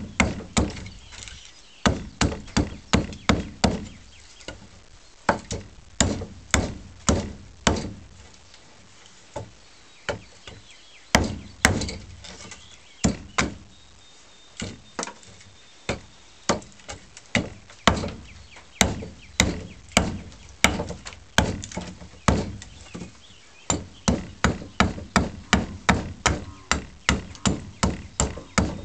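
Side axe hewing a wooden scythe-snath grip: quick runs of sharp chopping blows, about three a second, with short pauses between the runs.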